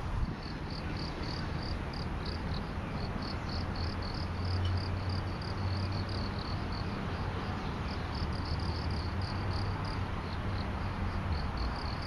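Crickets chirping in a rapid, steady run of short high-pitched pulses, over a low steady rumble.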